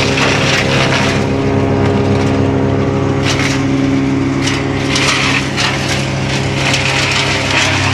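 Bugnot BV E55 diesel branch chipper running steadily while chipping pine branches. Its cutter breaks up the wood with dense crackling over the engine drone, and a run of sharp cracks comes near the middle.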